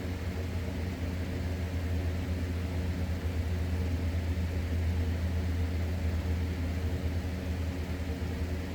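Steady low machine hum with a deep drone and a few fainter higher tones, unchanging throughout.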